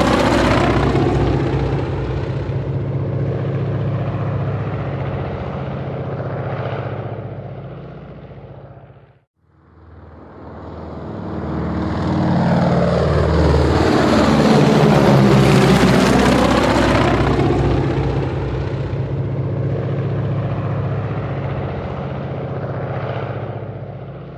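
Helicopter flying past, its rotor chop and engine fading away to a brief break about nine seconds in. A second pass then comes in, grows loud in the middle with the pitch sliding down as it goes by, and fades away again near the end.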